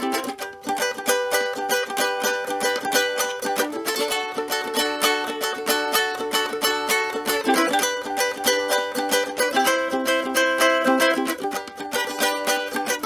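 Tenor-scale cigar box ukulele, built in a Brick House cigar box, being strummed: quick strokes of full chords, the chord changing every few seconds.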